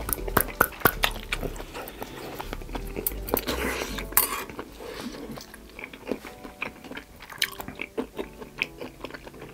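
Close-miked chewing of chewy beef knee cartilage (dogani) from ox-knee soup, with many wet clicks and smacks. A short breathy rush comes a little over three seconds in.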